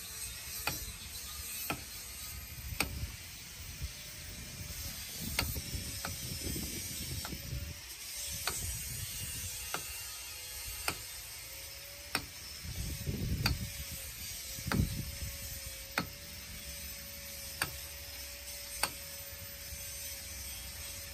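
Steel knocks from a John Deere 410 loader's hydraulic cylinder as its rod is yanked outward as a slide hammer, the piston striking the gland at the barrel's mouth about once a second to drive the gland out, with sliding scrapes between some strokes.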